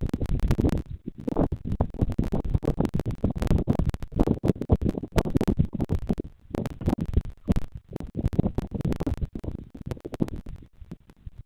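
Irregular crackling and scratching with a low rumble that swells and fades every second or so, picked up right at the nest camera's microphone.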